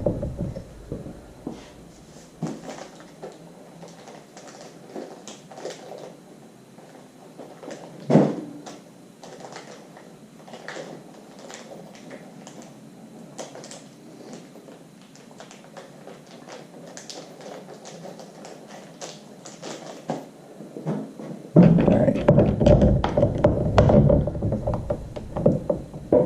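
Small scattered clicks and taps of tools, screws and parts being handled during a hand installation job, with a louder knock about eight seconds in. Near the end comes a louder, denser stretch of knocking and rattling.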